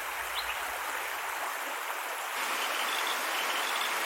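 Creek water running steadily. About two and a half seconds in, a frog chorus joins in over the water: a faint, fast, repeating high call.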